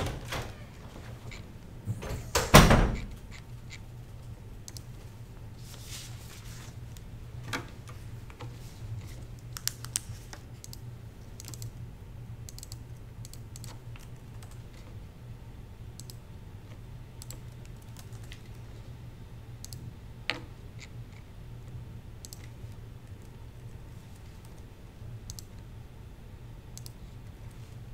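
Sparse typing on a laptop keyboard, scattered clicking keystrokes over a steady low hum. A single loud thump about two and a half seconds in.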